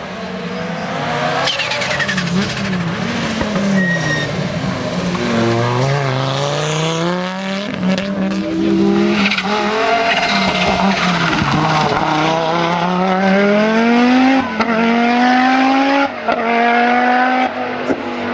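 Audi Sport Quattro S1 E2 Group B rally car's turbocharged five-cylinder engine under hard acceleration. The engine note climbs steadily through the revs, drops back and climbs again, and is cut briefly by quick gear changes near the end.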